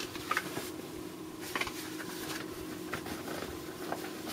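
Light handling noises, a few small clicks and knocks, as a boxed vacuum tube is fetched, over a steady faint hum.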